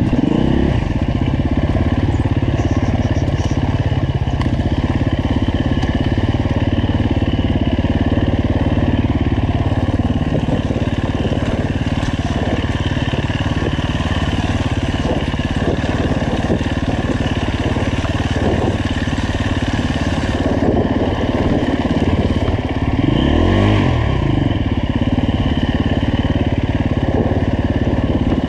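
2015 Husqvarna FE 350's single-cylinder four-stroke engine running steadily while riding a rough trail, with frequent knocks and clatter from rocks and the bike. The revs swing up and down briefly at the start and again late on.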